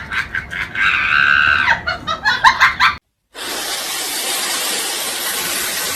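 Laughter in quick bursts with a held high squeal, cut off abruptly. After a short gap comes a steady hissing noise.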